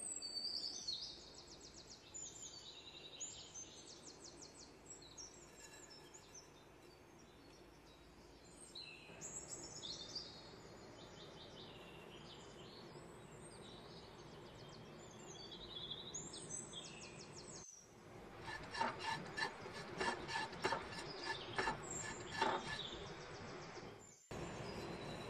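Small birds chirping over a low steady hum. In the last several seconds, a quick run of short clinking strokes with a ringing tone.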